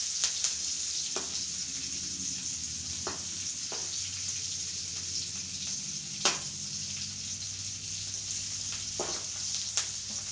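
Garlic cloves, green chillies and red chillies sizzling steadily in hot oil in a kadhai for a tadka, stirred with a metal ladle that clicks against the pan now and then, the sharpest click about six seconds in.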